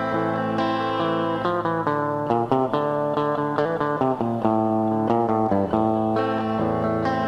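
Solo guitar improvisation: plucked notes and chords ringing on over one another, with a quicker run of notes in the middle.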